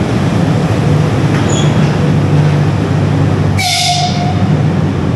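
Georgian Railways electric locomotive moving past along the platform: a steady loud rumble, with one short, sharp high-pitched blast about three and a half seconds in.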